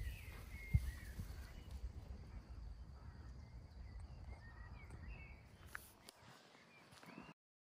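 Small birds chirping in short, repeated calls over a low rumble and a few thumps from walking outdoors. All sound cuts off suddenly near the end.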